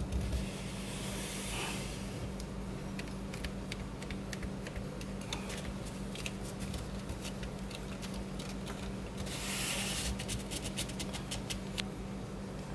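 Masking tape being peeled off the edges of watercolour paper taped to a board: a ripping hiss about a second in and again around ten seconds, with small crackles and ticks in between, over a steady low hum.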